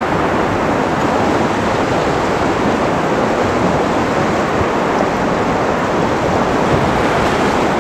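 Fast river current rushing over a shallow riffle around a wading angler, a steady loud wash of water.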